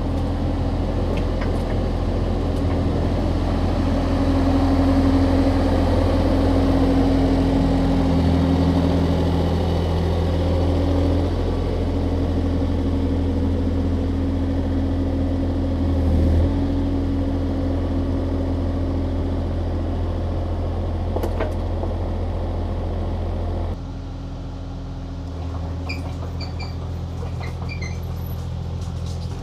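Excavator's diesel engine running steadily as the machine is maneuvered, its note shifting now and then. About 24 seconds in the sound drops abruptly quieter but keeps running.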